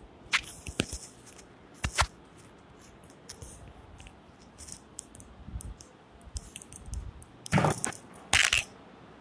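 Handling noises: a few sharp clicks and knocks in the first two seconds, scattered small taps, then two louder bursts of knocking and rubbing near the end.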